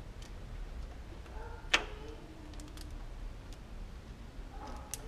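Plastic parts inside a Xerox WorkCentre copier clicking and snapping as they are handled, with one loud snap about two seconds in and a few lighter clicks after it.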